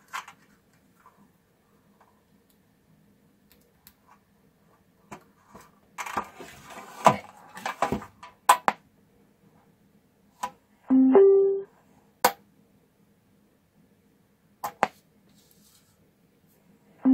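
Tinplate cookie tin clattering and scraping as its lid is fitted, with sharp metallic clicks. About 11 s in, a click is followed by a short two-note beep stepping up in pitch, played through the homemade speaker by its Bluetooth amplifier module, as on switching on. A few single clicks follow, and the same beep starts again at the very end.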